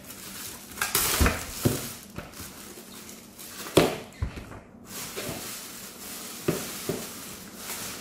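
Clear plastic bag crinkling and rustling as it is pulled off a plastic humidifier, with a few sharp knocks from handling the unit.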